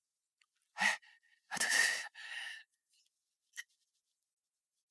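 A person's breathy exhalations: a short puff about a second in, then a longer sighing breath, followed by a brief click near the end.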